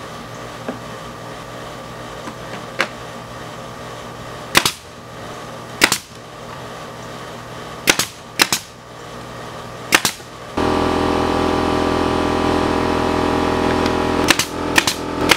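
Pneumatic nailer firing about eight sharp single shots at irregular intervals, driving nails through wooden battens into the shed's board siding. About two-thirds of the way in, a steady motor hum starts and keeps running under the later shots.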